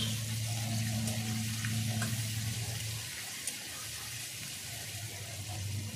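Small snakehead (shol) fish frying in mustard oil in a wok: a steady sizzling hiss, with a few light scrapes of a spatula. A low steady hum runs underneath.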